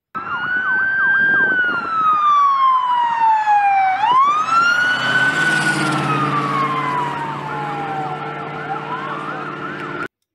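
Ambulance siren in wail mode: a loud tone that rises and falls slowly, sweeping down, back up and down again, with a low steady drone joining about halfway. It cuts off abruptly near the end.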